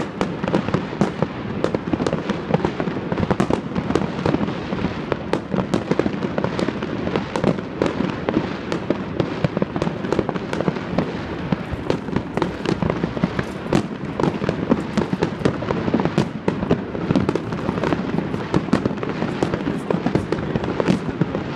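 Aerial fireworks display: shells bursting in a rapid, unbroken run of sharp bangs and crackling.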